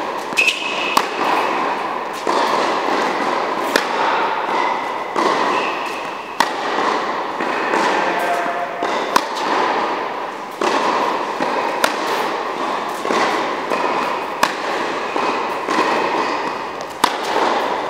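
Tennis ball struck by a racket and bouncing on an indoor hard court: a run of sharp pops roughly every one to one and a half seconds, over a steady background noise.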